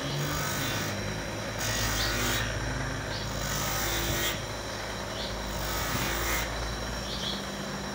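Electric bench grinder running with a steady hum while a large truck inner tube is pressed against its abrasive buffing wheel in repeated strokes, rasping the rubber rough around the puncture ready for a patch.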